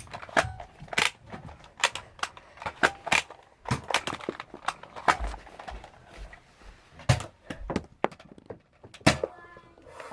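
Irregular sharp clicks and thuds of Nerf dart blasters being fired and handled, with darts striking, about two a second, with a short lull near the end.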